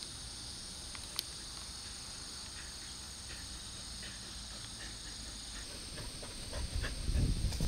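Steady high chirring of insects, with a couple of faint clicks; low rumbling thumps come in near the end.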